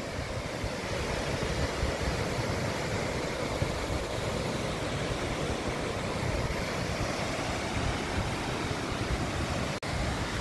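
Waterfall rushing over rocks: a steady, even roar of falling water, broken by a brief dropout near the end.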